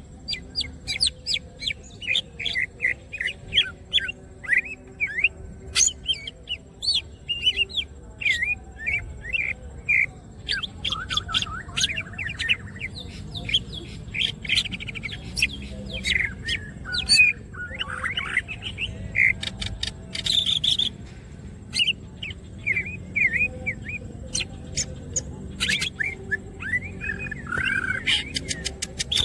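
Cucak ijo (green leafbird) singing nonstop, a fast, varied stream of chirps, whistled sweeps and trills with sharp clicking notes mixed in.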